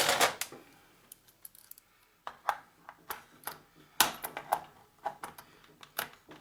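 Irregular clicks and knocks of parts being handled and worked loose while a portable oxygen generator is taken apart. A short clatter at the start, a quiet second or two, then scattered knocks, the loudest about midway.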